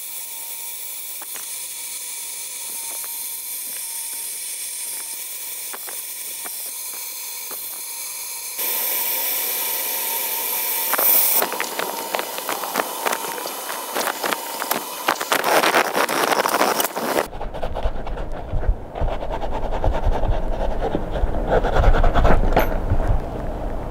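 Handheld butane torch flame hissing steadily, getting louder a little over eight seconds in, then crackling while a brass fitting is brazed. A few seconds before the end the hiss cuts off and rough, irregular rubbing and scraping noises follow as the part is worked at the bench.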